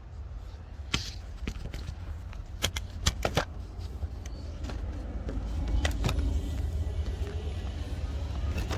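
Sharp clicks and knocks from a car steering wheel being fitted onto its hub by hand, a handful of separate strikes over a steady low rumble.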